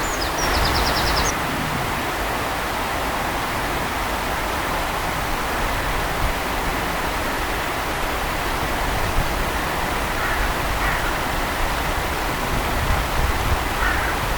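Steady, even rushing of running water, like a small waterfall or weir. A bird gives a brief, quick run of high chirps about half a second in.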